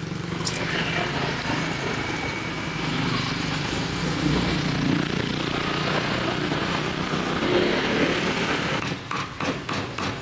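Street ambience with motorbike engines running past, a steady traffic noise with a low hum. Near the end come a few short, sharp knocks.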